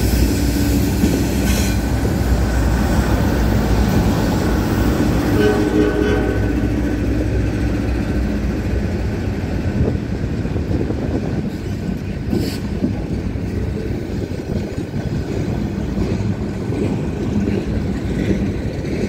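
Norfolk Southern GE diesel-electric freight locomotives passing close by, their engines running with a steady low drone over the sound of wheels on the rails. The drone is loudest in the first half and eases after about ten seconds.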